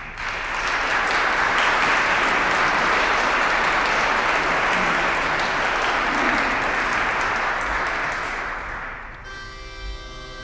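Audience applauding for about nine seconds. As the clapping dies away, a male choir begins singing, holding steady chords near the end.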